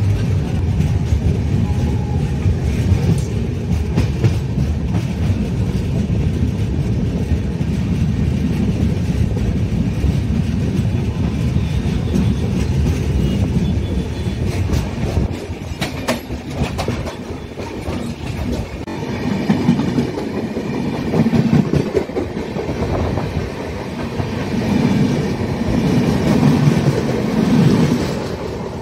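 Passenger train running on the rails, a loud steady rumble with the clickety-clack of wheels over the track. The rumble eases about halfway through and swells again several times near the end.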